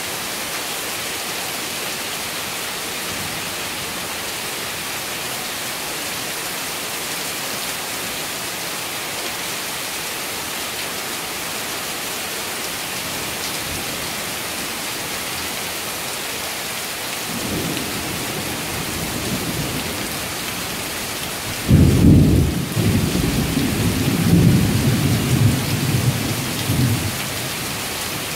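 Heavy rain falling steadily. Past the middle a low thunder rumble starts, then a loud thunderclap breaks in suddenly and rolls on for about five seconds.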